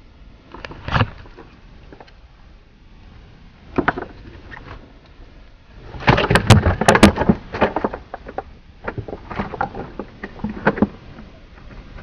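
Irregular knocks and clatter on a small fishing boat, with a dense run of loud knocks about six seconds in.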